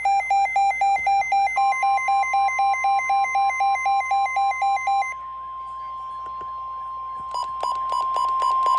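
Weather radio alert: the receiver's own alarm beeps, about four a second, stop about five seconds in. Under them, from early on, the weather radio's steady 1050 Hz warning alarm tone sounds, announcing a tornado warning. A few short blips come near the end, and the tone then comes up louder.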